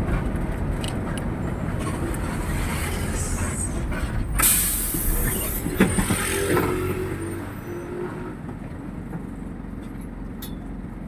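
Bus engine and road noise heard from inside the cabin. About four and a half seconds in there is a short sharp hiss, like a bus air brake, and a few knocks follow; the rumble grows quieter after about eight seconds.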